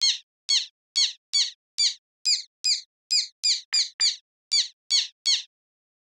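Synthesized black tern calls: an additive/wavetable imitation built in Native Instruments Absynth 5 by morphing between two wavetables, one per call type. Fourteen short, high, squeaky calls at an uneven pace of about two to three a second.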